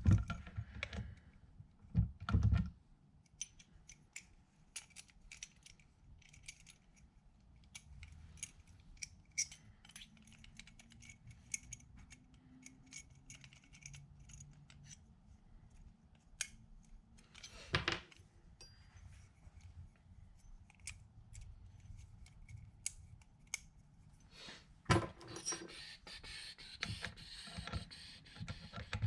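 Scattered small metal clicks, taps and rattles of door-knob hardware and an Allen wrench being handled while a screw is worked in, with a few louder knocks: one about two seconds in, one around the middle and one near the end, followed by denser clicking.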